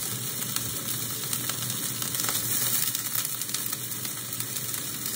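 Beef sausages frying in hot oil in a pan: a steady sizzle with scattered small crackles and pops.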